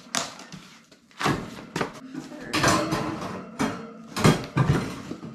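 White foam packing sheets being pulled from a cardboard box and set down on a wooden tabletop: a run of rustling, scraping handling noises with a few soft knocks, the loudest a little past four seconds in.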